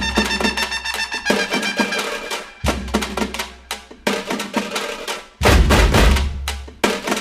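Background music with a steady drum beat and heavy bass hits.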